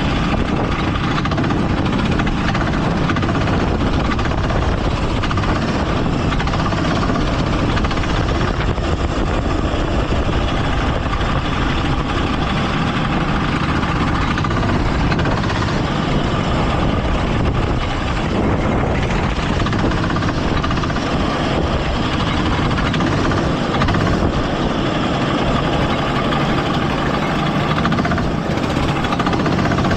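Go-kart engine running steadily through a race, heard from a camera mounted on the kart, with a loud, even rush of noise over it.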